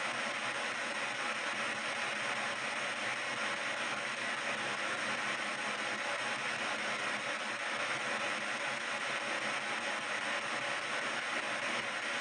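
PSB7 ghost box scanning radio stations in reverse sweep, played through stereo speakers: a steady hiss of radio static.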